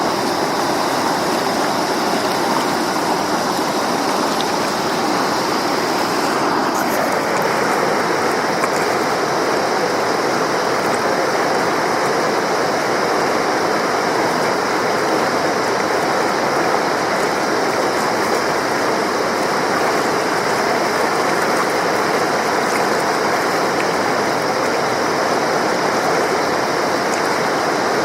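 A Himalayan mountain river, the Madhuganga, rushing steadily as a continuous even wash of water noise; its tone shifts slightly about seven seconds in.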